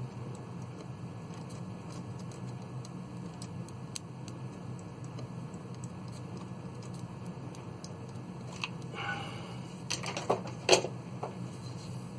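Handling of hard plastic model parts: a steady low hum with small scattered ticks, then a few sharper clicks and knocks from about eight and a half to eleven seconds in, the loudest near the end.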